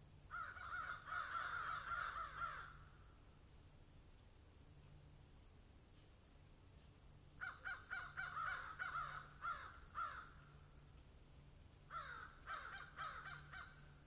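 Three bouts of rapid, repeated animal calls, each a quick string of short notes lasting two to three seconds: one at the start, one about seven seconds in and one about twelve seconds in.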